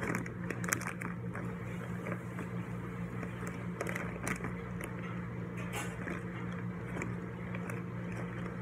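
Clear plastic bag crinkling and crackling in irregular bursts as a hand shifts the small plastic toy wrestler figures packed inside it. A steady low hum runs underneath.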